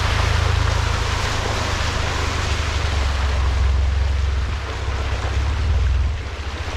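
Jeep Wrangler driving along a dirt trail: a steady low engine and road rumble under a constant hiss of wind and tyre noise.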